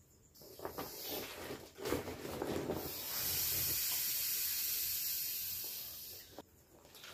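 Air hissing out of an inflatable vinyl bear-face chair as it is squashed and folded flat to deflate it, with rustling of the plastic. The hiss settles into a steady rush, then cuts off suddenly about six seconds in.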